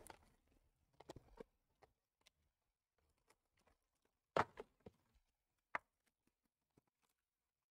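Quiet handling noises of plastic-wrapped trading card packs being picked up, turned over and set down on a table: a few light taps and rustles in small clusters, the loudest about four and a half seconds in.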